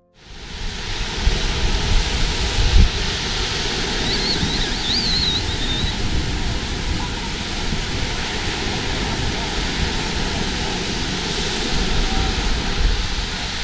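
Surf washing on the beach, with wind buffeting the microphone in an uneven low rumble. A brief high wavering whistle comes about four seconds in.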